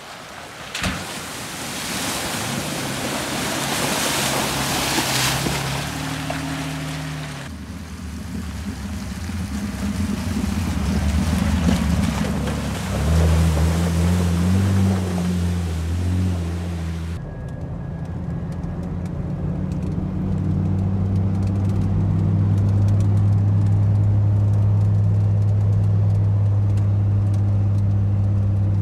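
Off-road vehicle's engine running on a dirt trail, its pitch rising and falling with the throttle. A loud rushing noise lies over it for the first several seconds. After an edit near the middle, the engine settles into a steadier, louder drone.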